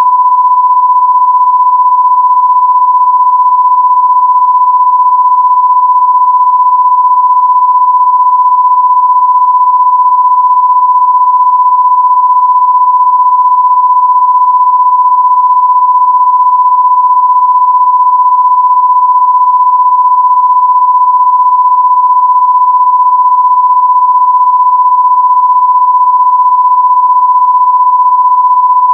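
A loud, steady electronic pure tone at about 1 kHz, unwavering in pitch and level: a sine-wave test tone.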